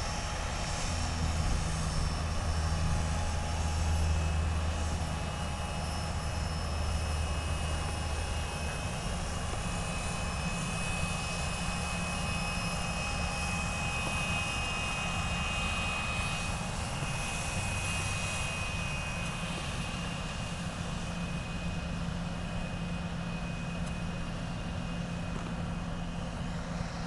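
Twin Rolls-Royce AE 3007 turbofans of an Embraer EMB-135LR regional jet at taxi power: a steady high whine over a constant rush of jet noise, with a low rumble added during the first several seconds.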